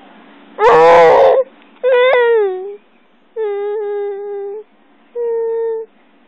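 A baby vocalizing: four drawn-out, high-pitched calls. The first is the loudest and wavers, the second slides down in pitch, and the last two are held steady.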